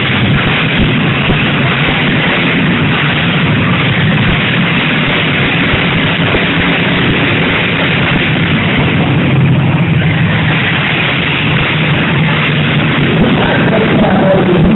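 Loud, steady din of demolition derby cars' engines running hard in the arena.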